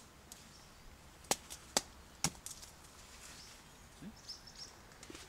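Knife splitting a dry branch for kindling: a sharp crack right at the start, then three sharp knocks about half a second apart between one and two and a half seconds in.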